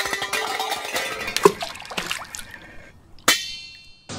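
Ringing chime-like tones from an edited title transition: a chime fading out, light scattered clicks and clinks with one sharp click, then a second bright ding about three seconds in that rings and fades.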